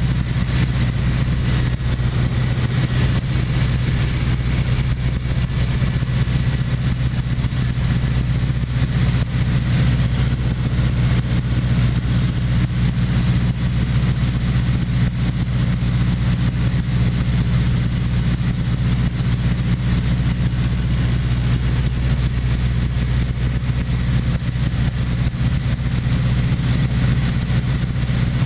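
Engine and propeller of a light single-engine high-wing airplane droning steadily in cruise, heard from inside the cockpit.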